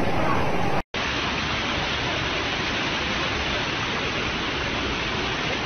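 Steady rush of water, broken by a split-second gap about a second in, after which the rushing carries on.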